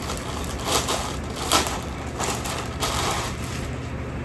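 Plastic packaging bag crinkling and rustling in short bursts, about one a second, as it is unwrapped by hand.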